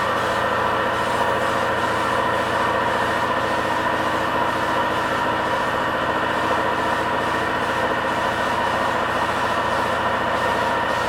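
Homemade air compressor running steadily, delivering air directly without a tank, a constant mechanical drone.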